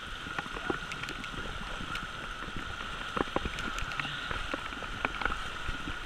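Heavy rain falling on a river: a steady hiss of rain on the water, with many small, scattered taps of drops close by.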